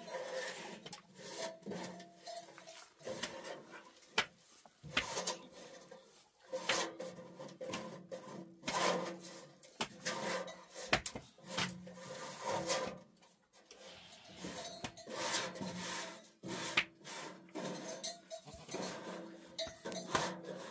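Hands scraping and rustling dry straw and chaff along a wooden feed trough, in a run of short, irregular strokes.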